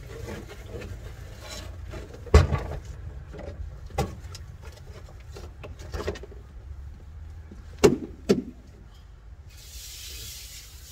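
A plastic cooler being handled and tipped, giving five sharp knocks over a steady low rumble. Near the end a steady hiss of water spraying starts.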